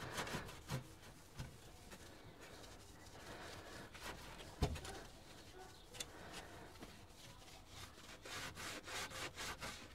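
Damp sponge rubbing over freshly grouted ceramic wall tiles, wiping off the excess grout; faint, with a sharp knock about four and a half seconds in and a run of quicker strokes near the end.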